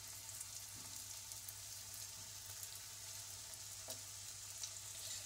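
Dough rolls sizzling gently in a little hot oil in a kadhai over a medium flame, with scattered small crackles over a steady low hum.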